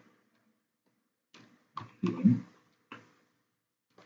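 A few separate taps on computer keyboard keys, starting about a second and a half in; the loudest and deepest comes just after the two-second mark.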